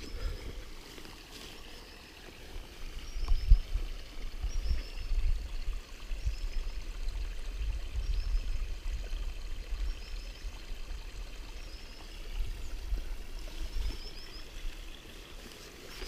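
Gusty outdoor rumble, like wind buffeting the microphone, swelling and easing, while a small bird repeats a short, high, quick chirping call every second or two.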